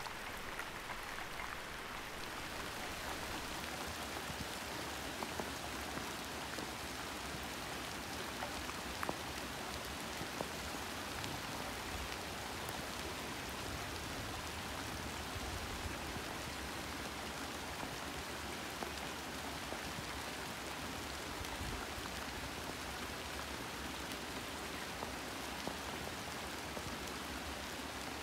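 Steady even hiss like falling rain, with faint scattered ticks.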